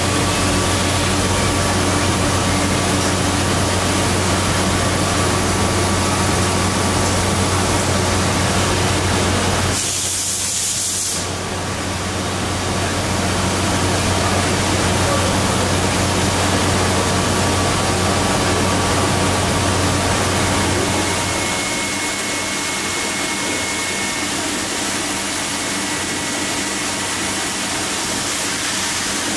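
Okamoto ACC-84EX CNC surface grinder running: a steady machine hum with hiss. A brief louder hiss comes about ten seconds in, and the deep part of the hum stops at about twenty-one seconds while the rest keeps running.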